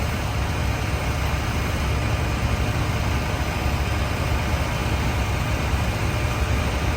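Heavy diesel engines of road-paving trucks and machinery running steadily at idle, a continuous low rumble.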